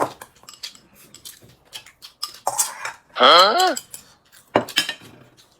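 Chopsticks and utensils clicking against bowls and plates during a meal, short scattered clicks throughout. About three seconds in, a brief loud voice-like tone whose pitch wavers down and back up.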